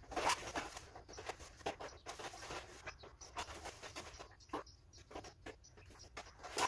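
Irregular clicks and scrapes, two or three a second, as a garden hose is wound onto a hose reel.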